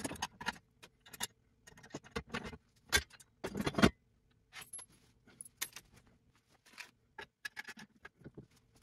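Irregular clinks, knocks and rattles of metal parts being handled on a wooden workbench: the steel pole and mounting plate of a ceiling TV bracket being turned and set down, with loose bolts and washers clinking. The loudest knocks come about three to four seconds in.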